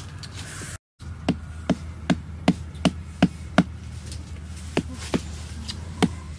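Wooden stakes being knocked into the ground with a thick wooden branch used as a mallet: a run of seven sharp knocks, about two and a half a second, then a few more spaced-out strikes near the end.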